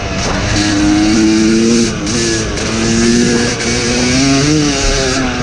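Yamaha YZ250 two-stroke dirt bike engine under way on a trail, its pitch climbing and dropping several times as the throttle is worked and gears change.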